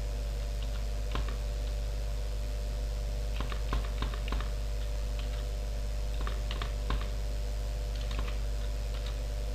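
Typing on a computer keyboard: scattered, irregular keystrokes, some in quick little runs, over a steady low hum.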